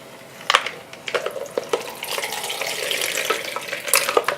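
Liquid being poured off shrimp into a kitchen sink: a splashing hiss through the middle, with knocks and clinks of the container a little after the start and again near the end.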